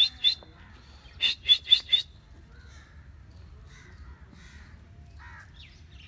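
Grey francolin (grey partridge) calling: loud, harsh notes repeated quickly, about four a second, three at the start and four more after a short pause, ending about two seconds in.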